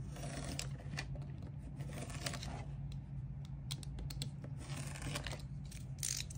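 Small snips cutting the wire links between LED modules: several short snips, with the rustle of the thin wires being handled, over a steady low hum.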